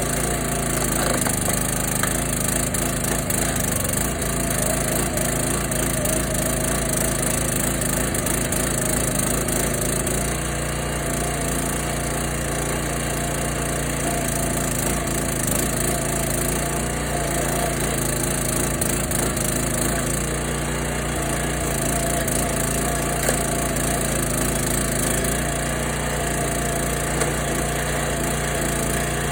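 Kohler 6.5 hp engine on a 22-ton Dirty Hand Tools log splitter running steadily while logs are split. Its note shifts a few times along the way.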